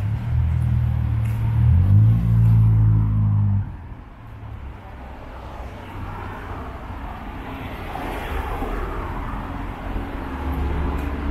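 A nearby motor vehicle's engine running with a low, steady hum, its pitch stepping up about two seconds in, then fading out after about four seconds. Quieter street traffic noise follows, and a low engine hum comes back near the end.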